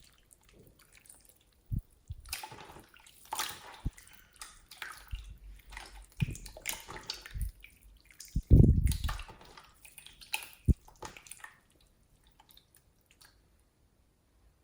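Slime being squeezed and worked by hand, making irregular wet squelches and crackling pops, with a loud low thump about eight and a half seconds in. It drops to near silence for the last couple of seconds.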